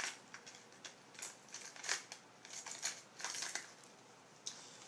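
Light, irregular clicks and rattles of plastic tackle boxes and lures being handled, a dozen or so small knocks over about three and a half seconds.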